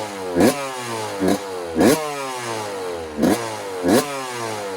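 1990 Suzuki RM125's single-cylinder two-stroke engine being blipped about six times in quick succession, each sharp rise in revs falling away before the next.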